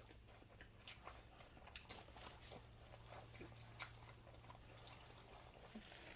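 Faint chewing and mouth sounds of a person eating a soft taco: scattered small clicks and smacks over a faint low hum.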